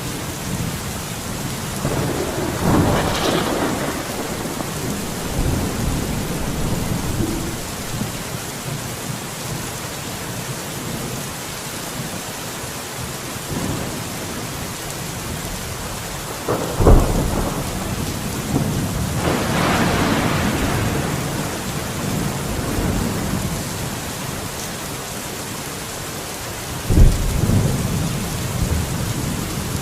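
Steady rain falling, with thunder: a rumble a few seconds in, a sudden loud crack past the middle followed by a long rumble, and another sharp crack near the end.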